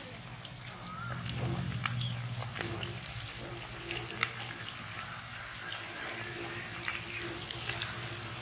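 Pakoda batter deep-frying in a kadai of hot oil: a steady sizzle with frequent sharp crackles and pops.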